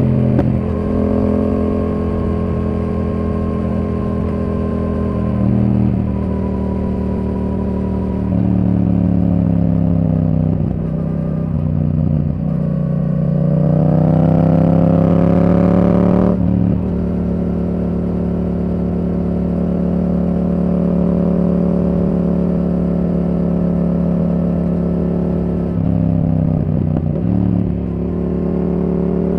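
The 689 cc parallel-twin engine of a 2023 Yamaha R7 running through a Yoshimura R77 exhaust while being ridden. Mostly steady cruising, with the pitch falling and then rising again between about 10 and 16 seconds in. The note breaks off sharply at about 16 seconds, dips again near 27 seconds, and climbs near the end.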